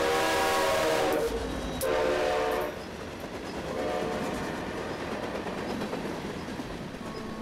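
Diesel freight locomotive's air horn sounding: a long blast that ends about a second in, then a shorter blast a second later. After the horn comes the steady rumble and clatter of freight cars rolling past.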